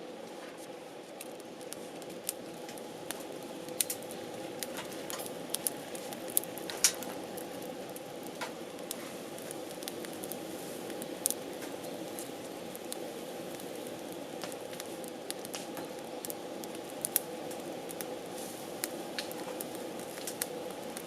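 Wood campfire burning: a steady hiss of flame with many sharp crackles and pops, the loudest pops about 4 to 7 seconds in and again around 11 seconds.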